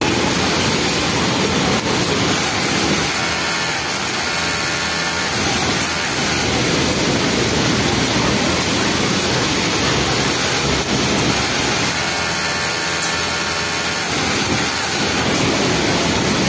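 Steady, loud din of industrial sewing machines running in a garment factory. Twice, for two or three seconds each, a pitched machine whine sounds above the din.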